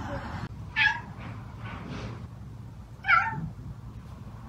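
Domestic cat meowing: two short meows about two seconds apart, each falling in pitch.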